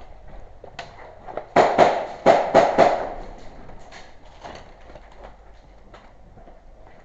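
Airsoft gun firing: a quick string of about five sharp shots between about one and a half and three seconds in, with a few fainter single shots before and after.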